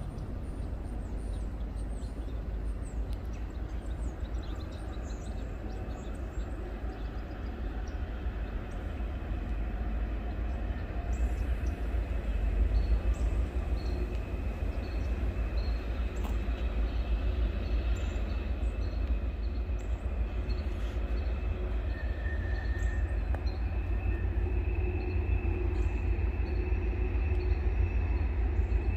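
Freight train rolling past: a steady low rumble of cars on the rails with a faint, high, steady ring over it, growing louder about ten seconds in.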